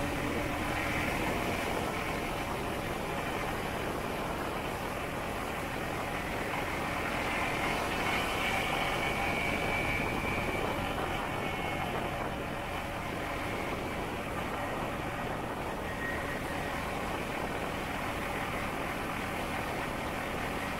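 Steady engine and road noise of a motorbike riding along a city street, swelling slightly about eight seconds in.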